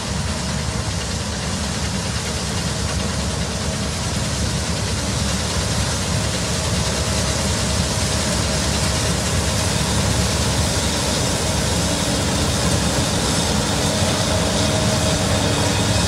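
Case IH 4130 combine harvester running while harvesting dry soybeans: a steady engine and machinery drone under a dense hiss, growing slowly louder as it passes close by.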